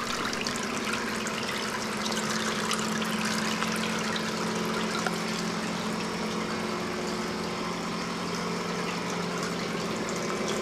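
Water trickling and splashing steadily as it cascades down through a tier of hanging plastic-bottle planters filled with clay pebbles into a fish tank, an aquaponics circuit. A steady low hum runs underneath.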